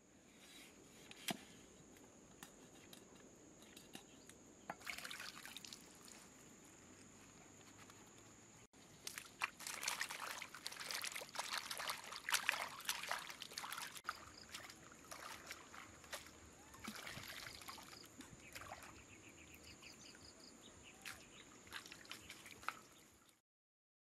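Shallow pond water sloshing and splashing as hands wash vegetables in a woven bamboo basket dipped in it. The splashing is loudest in the middle, over a faint steady high-pitched tone.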